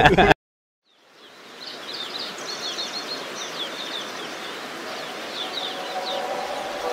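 Outdoor ambience that fades in about a second in: a steady outdoor noise with birds chirping repeatedly in short, high, falling notes.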